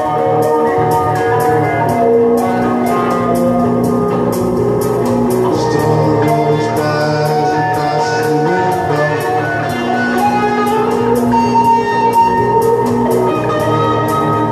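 Electric guitar music with a steady beat, held notes over a regular ticking rhythm.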